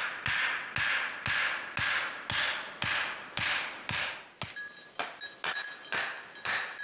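A hammer driving stakes into the ground, with steady blows at about two a second.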